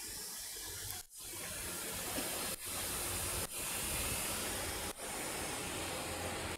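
Steady hiss of background noise that cuts out briefly four times, about a second in and again near the middle.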